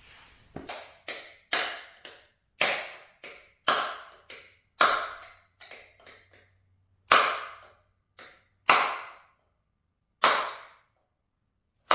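About two dozen hammer blows on the hub assembly in a truck front axle's steering knuckle, each a sharp metallic strike that rings briefly. They come quick and irregular at first, then slow to four heavier blows about a second and a half apart near the end.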